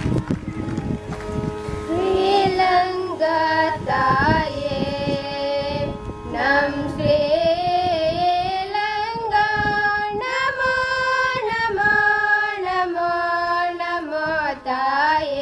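Children singing a slow song together in unison, the voices coming in about two seconds in, over a steady held drone.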